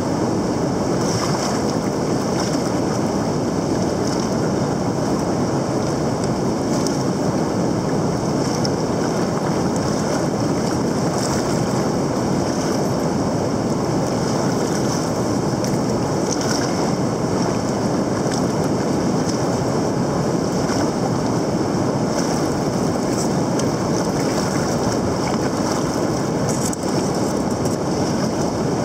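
River rapids rushing over rock, a steady loud even rush of fast water.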